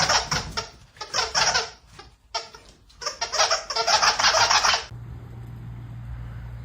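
A person laughing hard in several loud, breathless bursts that stop about five seconds in, leaving a low steady hum.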